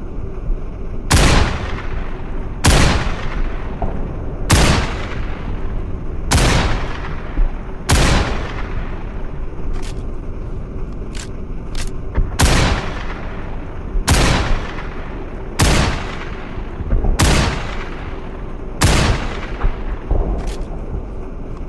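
Browning BLR lever-action rifle firing about ten shots, one every second and a half or so, each followed by a long fading echo. During a pause midway and again near the end come a few light sharp clicks.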